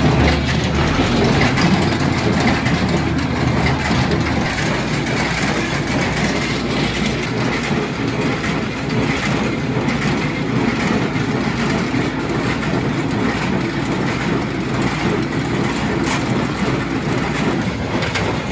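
International 445 square baler running off a tractor, with a steady mechanical clatter over the tractor engine's drone; the engine note shifts about four seconds in.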